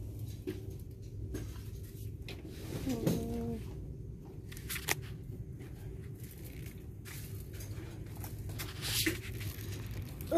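Quiet handling of small packaged items: scattered light rustles and clicks over a low steady hum, with one sharper click about five seconds in.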